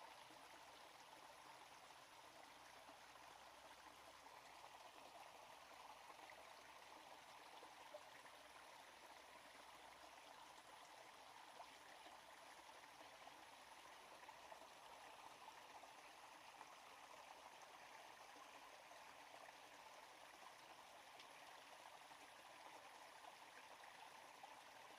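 Faint, steady flow of a small forest stream, with a couple of soft ticks.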